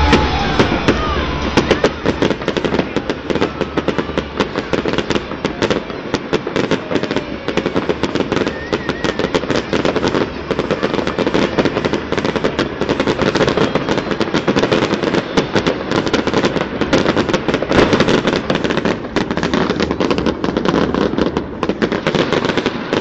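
Fireworks going off as a dense, continuous crackle of many small rapid bangs.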